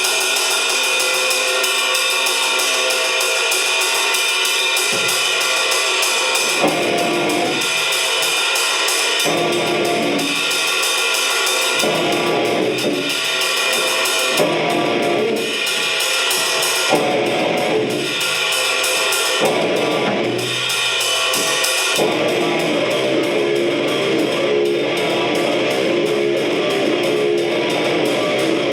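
Rock band rehearsing: a drum kit with cymbals and hi-hat keeps a beat under guitar chords, loud and continuous.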